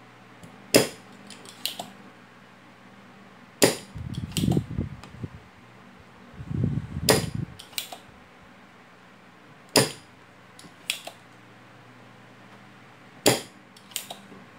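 Spring-loaded desoldering pump (solder sucker) firing five times with sharp snaps, each followed by smaller clicks, as it sucks molten solder off the leads of the shorted rectifier diodes. There is duller handling noise between the second and third snaps.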